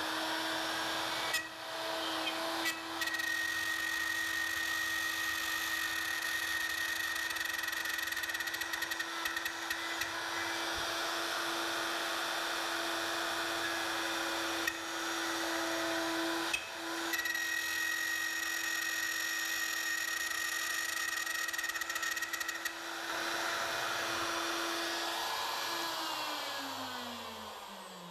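Plunge router running steadily at high speed while freehand-routing a shallow slot in wood, with two brief dips in the motor's note. Near the end it is switched off and its pitch falls as it winds down.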